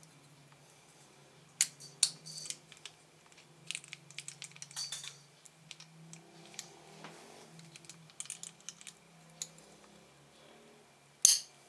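Scattered sharp metallic clicks and clinks, irregular with a loud one near the end, from a mole wrench (locking pliers) and a bent 3D-printer shaft as the shaft is clamped and squeezed to straighten it.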